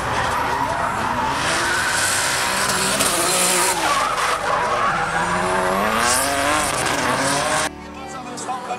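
Drift car engines revving hard, their pitch rising and falling, over the squeal of tyres spinning sideways. The sound drops suddenly near the end.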